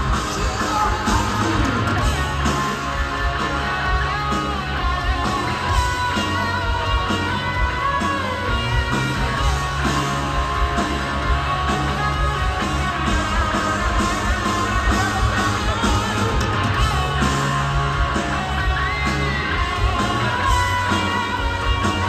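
Rock band playing live through a concert PA, with an electric guitar lead bending notes over the bass and drums.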